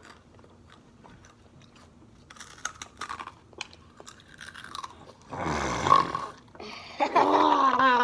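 A child crunching a mouthful of Takis rolled tortilla chips, with short crisp crunches. About five and a half seconds in comes a loud breathy burst, then near the end a drawn-out wavering vocal groan falling in pitch, a reaction to the chips' heat.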